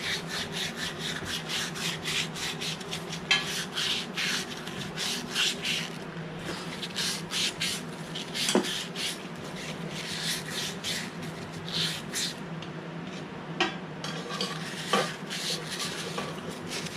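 Repeated irregular scraping and rubbing strokes on a lawnmower carburetor as built-up residue is scrubbed off its walls, over a steady low hum.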